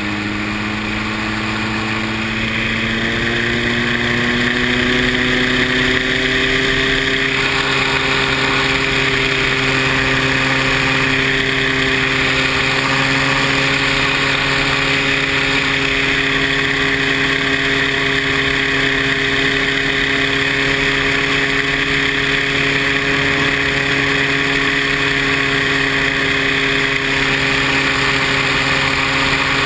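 Paramotor engine running, its pitch rising over the first few seconds and then holding steady, with a steady hiss over it.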